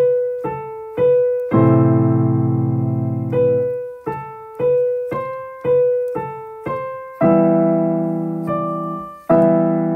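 Piano music: a repeated single note struck about twice a second, each note fading away, with fuller chords held about a second and a half in, about seven seconds in and again near the end.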